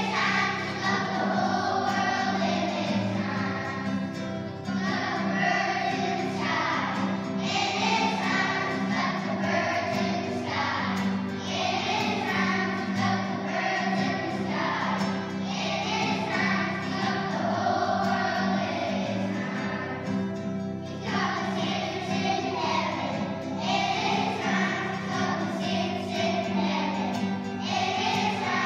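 A group of children singing a song in unison over instrumental accompaniment.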